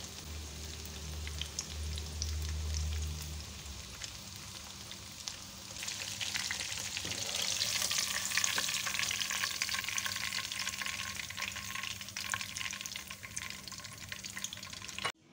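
Breaded chicken skewers deep-frying in hot oil in a wok, a steady crackling sizzle. About six seconds in the sizzle grows louder as the sticks are lifted out of the oil with a wire skimmer.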